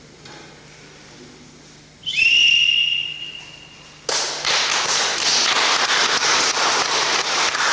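A referee's whistle blown once, a single held blast of about a second. About four seconds in, a loud, dense crackling noise starts suddenly and runs on.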